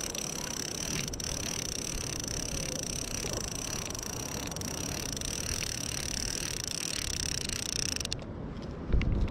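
Multiplier fishing reel being cranked steadily to wind in line, its gears giving a high, even whirr that stops abruptly about eight seconds in. Low wind rumble on the microphone underneath.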